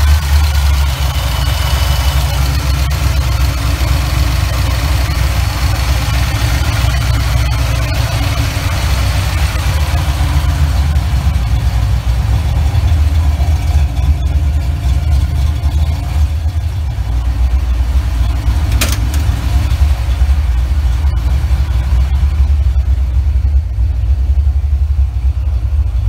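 Ford 302 (5.0 L) small-block V8 of a 1988 Mustang GT, fuel-injected by a Holley Terminator X, running steadily at idle just after being started.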